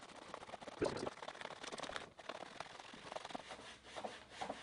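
Faint, irregular rubbing and rustling: a shoelace being sawn back and forth against plastic cuffs to cut through them by friction.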